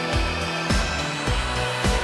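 Background music with a steady electronic beat, a kick drum about twice a second under sustained synth tones.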